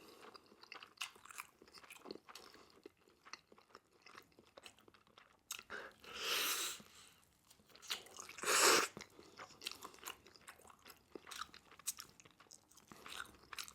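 Close-miked biting and chewing of crispy Korean fried chicken: a steady crackle of the crunchy coating being chewed, with two louder crunching bites about six and eight and a half seconds in.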